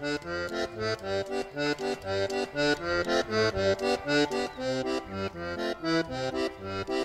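Diatonic button accordion playing a tune solo: quick, evenly spaced melody and chord notes over alternating bass notes, in a steady rhythm.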